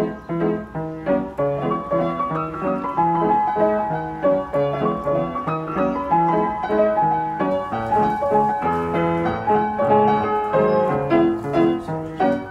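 Background piano music: steadily repeated chords with a simple melody of held notes above.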